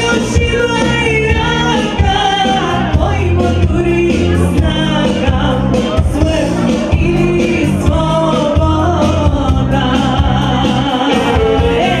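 A woman singing a Bulgarian folk song live into a microphone over amplified backing music with a steady beat.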